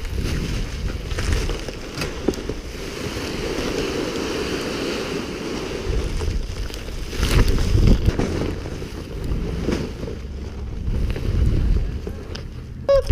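Wind buffeting the microphone in a steady rumbling rush, with a few knocks about halfway through.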